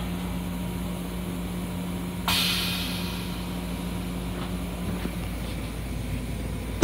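Steady low hum inside an M7 railcar restroom. About two seconds in, a sudden hiss of released air starts and fades away over a second or so. A knock near the end comes as the plastic toilet lid is handled.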